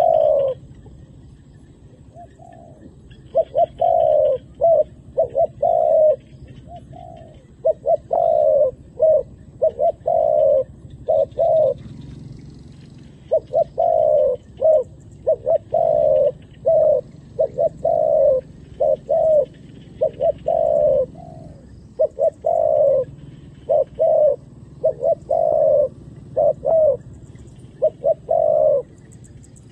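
Spotted dove cooing over and over in short phrases of a few deep notes, with brief pauses between them. It is a decoy bird calling to draw wild doves down to the ground.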